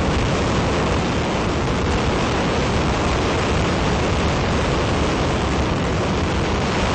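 Ares I five-segment solid rocket motor firing on a horizontal static test stand, mid-burn at full thrust: a loud, steady, unbroken rush of exhaust noise, heavy in the low end.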